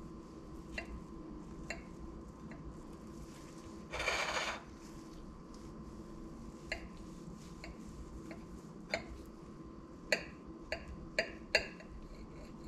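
Metal knife and fork clicking and scraping against a ceramic plate while cutting a pancake: a scattered series of sharp clinks, a brief louder scrape about four seconds in, and a quick cluster of clinks near the end.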